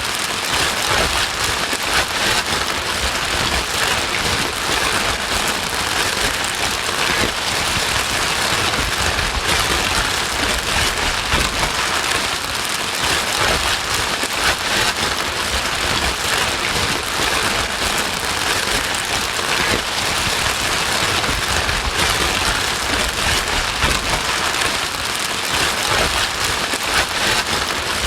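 Steady white noise, an even rain-like hiss that does not change, played to soothe a crying baby.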